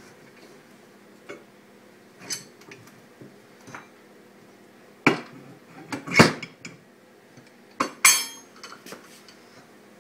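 Metal clanks and knocks as a snowmobile clutch is set onto a steel clutch service tool and the tool's lever arm is pulled down over it. The knocks are scattered, the loudest about six seconds in, with a short rattle near eight seconds.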